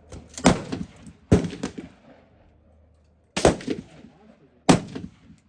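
Four shots from a 5.56 AR-15 rifle, fired singly at an uneven pace: two close together, a pause of about two seconds, then two more. Each shot is a sharp crack followed by a brief echo.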